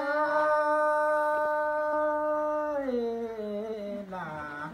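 A singer's voice holding one long unaccompanied note for nearly three seconds, then sliding down in pitch with a wavering ornament near the end, in the style of sung folk verse.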